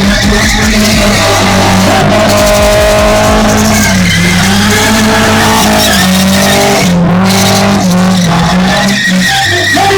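BMW E36 spinning, its engine held at high revs while the rear tyres squeal and skid continuously. Background music plays along with it.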